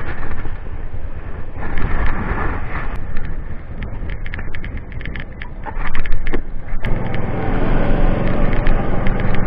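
Motor scooter riding noise: wind rushing over a helmet-mounted microphone with engine and road noise, plus a few light clicks. About seven seconds in, background music comes in over it.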